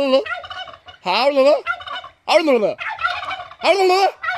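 Domestic turkeys calling: about four short arched, wavering calls about a second apart, with gobbling chatter between them.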